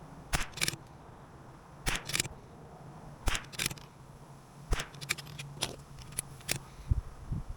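CZ457 .22LR bolt-action rifle being fired and worked: sharp cracks and clicks, mostly in pairs about a third of a second apart, coming every second and a half or so, with a quicker run of clicks about five seconds in.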